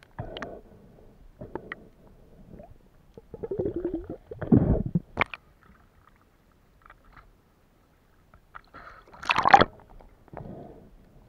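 Water gurgling and bubbling around a camera moved about underwater, in irregular spurts with short clicks between. Two louder gurgles come about four and about nine seconds in.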